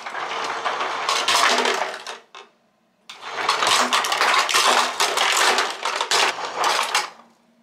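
Ice dispenser dropping ice cubes into a paper cup with a rattling clatter, in two runs: about two seconds, then after a short pause about four seconds more. Cubes spill over the cup onto the drip tray.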